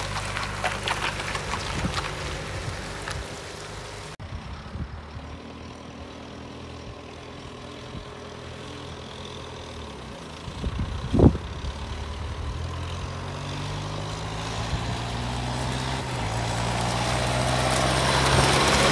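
John Deere 6430 tractor's six-cylinder diesel engine pulling a loaded round-bale trailer: first driving away with tyre hiss on the wet road, then, after a cut, approaching from a distance and growing steadily louder. A brief loud thump comes about halfway through.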